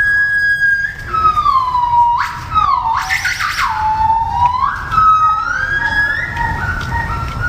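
Gibbon calling: long, pure, whistle-like hoots that slide up and down in pitch, broken by a fast rising whoop about two to three seconds in. Near the end, two notes sound at once.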